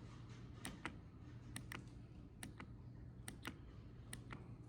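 Small tactile pushbutton being pressed and released repeatedly, a pair of sharp little clicks about every second, over a faint steady hum.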